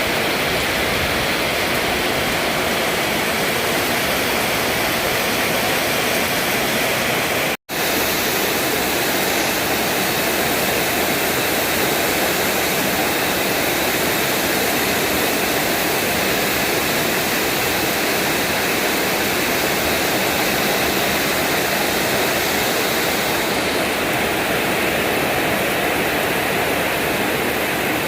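Heavy rain falling in a steady, even downpour; the sound cuts out for an instant about seven and a half seconds in.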